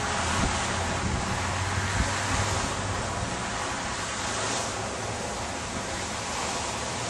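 Steady rushing noise of wind on the microphone, with uneven low buffeting rumbles, strongest in the first few seconds.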